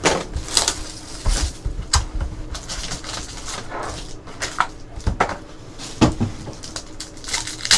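Trading-card packs and their cardboard box being handled as a Panini Stars & Stripes box is unpacked: packs pulled out and set down in stacks, with irregular rustles and taps and a few sharper knocks.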